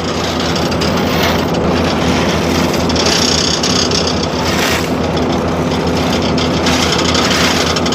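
Asphalt paver's diesel engine running steadily, a loud, even drone with a low hum.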